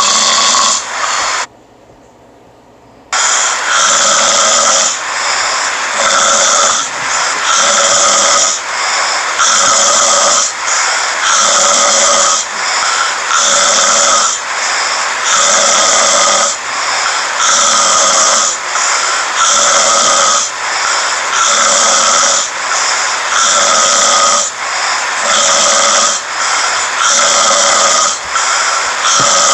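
A sleeping man snoring, one loud hissy snore after another in a steady repeating rhythm. The sound drops out for about a second and a half near the start.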